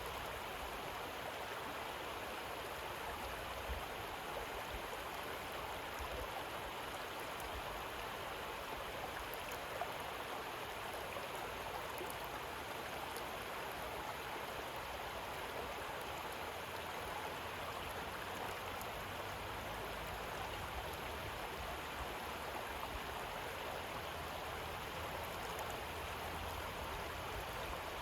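Shallow river water flowing steadily over pebbles, an even babbling rush without pause.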